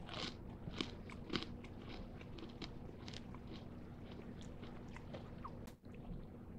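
Close-miked crunching and chewing of a freeze-dried Laffy Taffy: crisp crunches, strongest in the first second or so, then fainter, scattered ones as the candy breaks down into a powder.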